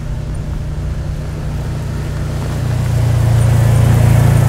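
Side-by-side UTV engine running steadily as it drives over grassland toward the listener, growing louder about three seconds in as it comes close.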